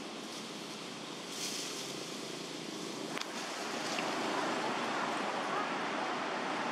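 Wind rushing through tree leaves, a steady noise that swells louder about four seconds in, with one faint click a little before.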